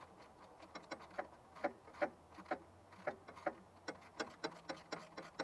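A run of light, sharp clicks or ticks, about two a second and slightly uneven in spacing, like a ratchet or small mechanism being worked.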